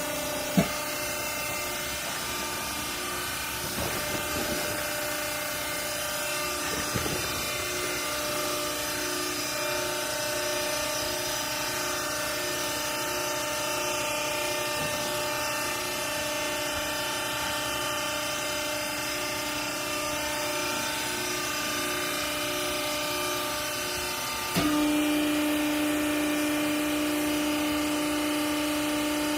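Cleaning-rag baler machine running with a steady hum of several held tones, with a sharp click just after the start. About 25 s in, the hum jumps louder and deeper as the machine changes load.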